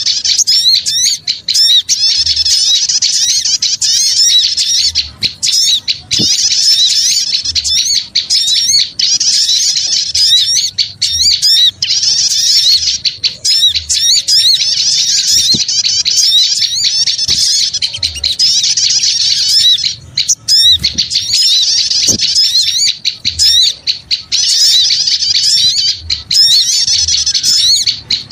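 Loud, dense chattering of many small birds, rapid high chirps and twitters in bursts of about two seconds with short breaks between them. It is a bird-lure call recording meant to draw in small birds.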